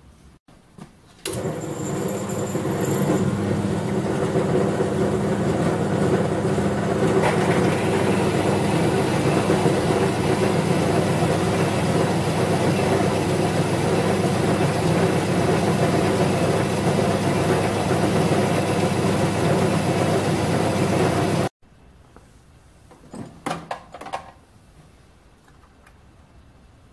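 Small metal lathe running steadily: motor and gearing hum with a constant pitch. It starts about a second in and cuts off suddenly, followed by a few faint knocks near the end.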